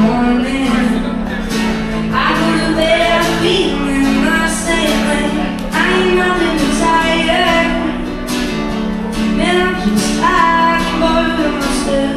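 Background music: strummed acoustic guitar with a singing voice carrying the melody.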